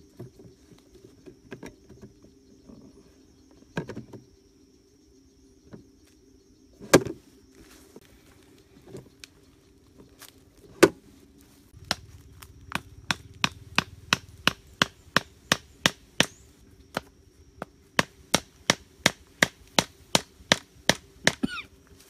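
A large knife chopping at the base of a thin green sapling stem. A few separate sharp strikes come first, then from about halfway a steady run of strikes at roughly three a second.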